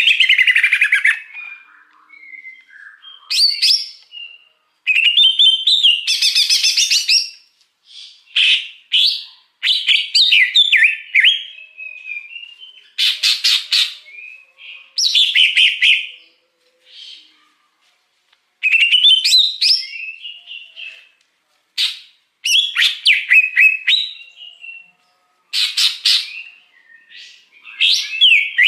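Wild greater green leafbird (cucak hijau) singing: a string of loud, varied phrases of quick falling whistles, chattering trills and harsh notes, each a second or two long with short pauses between.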